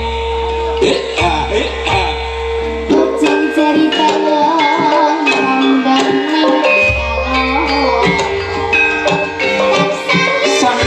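Javanese gamelan music playing: a wavering melody over held ringing tones, with a low bass that drops out for a few seconds midway.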